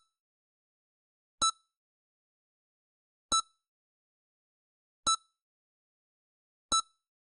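EKG heart-monitor beeping: four short, identical beeps a little under two seconds apart, with silence between them.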